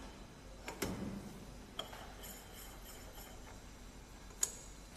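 Metal parts of a GD-600+50KQ tool grinder's workhead clicking and clinking as they are handled and adjusted: a couple of knocks about a second in, a light clink with brief ringing near two seconds, and a sharp click near the end.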